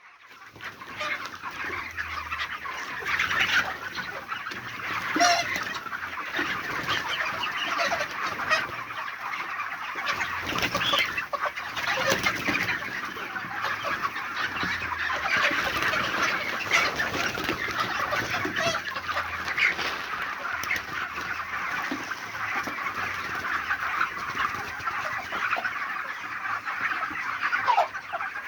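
A flock of young broiler chicks peeping continuously, many high-pitched cheeps overlapping into a steady chatter.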